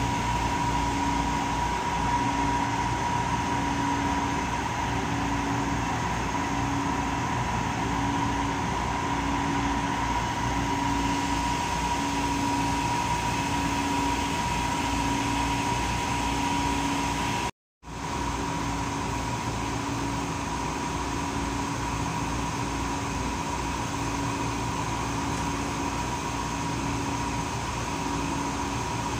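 Idling diesel train with its air conditioning running, heard from inside a carriage: a steady mechanical hum with a constant high tone and a lower tone pulsing about once a second over a throbbing low drone. The sound cuts out completely for a moment about two-thirds of the way through.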